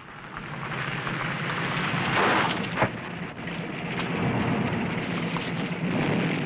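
City street traffic noise: a steady rumble and hiss that swells in, with a couple of sharp knocks about two and a half seconds in.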